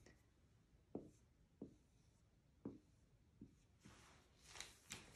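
Faint sound of a dry-erase marker writing on a whiteboard: a few short soft taps as strokes begin, then a light scratchy hiss of the felt tip near the end.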